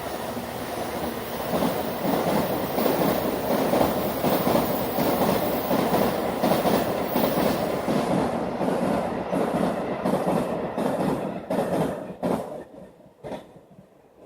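Freight train passing close by, a loud rolling rumble of wheels on rail. After about eight seconds it breaks into spaced clacks of wheels crossing rail joints, which thin out and fade as the last wagons go by.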